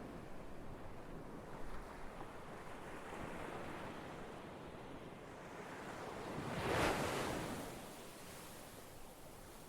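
Ocean surf, a steady wash of waves, with one wave swelling and breaking about seven seconds in before it falls back.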